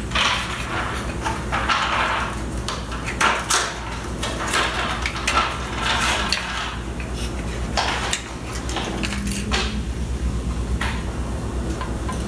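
Plastic housing of an Etekcity Lasergrip 774 infrared thermometer being worked apart by hand: irregular clicks, creaks and rattles of the plastic halves and loose parts, over a steady low hum.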